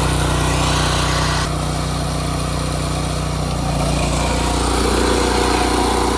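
A small engine running steadily just after being started.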